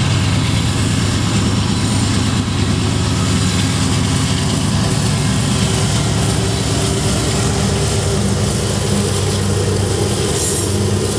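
Two Canadian Pacific GE AC4400CW diesel-electric locomotives, each with a 16-cylinder GE 7FDL engine, passing close by with a train. Their engines make a steady low drone over the rumble of steel wheels on the rails.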